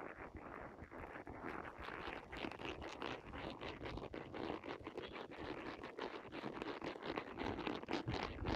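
A horse's hooves crunching on a gravel track, an irregular run of clicks and scrapes, mixed with the rubbing of a handheld recording device jolted by the horse's movement.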